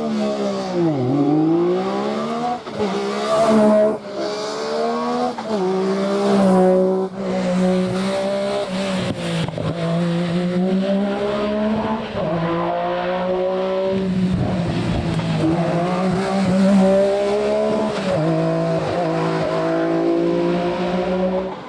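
Metro 6R4 rally car's V6 engine running hard at high revs. The revs drop sharply and climb again about a second in, then rise and fall repeatedly through the rest.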